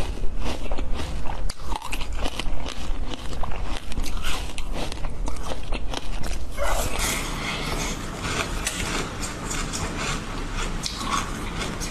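Close-miked chewing and biting of food, with irregular sharp clicks. About six and a half seconds in it changes to a denser, steadier crackling chew of a second food.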